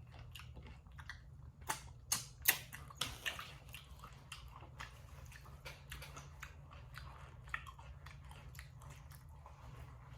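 Close-miked mouth sounds of a person eating: chewing with many short wet smacks and clicks, loudest and densest about two to three seconds in. A steady low hum runs underneath.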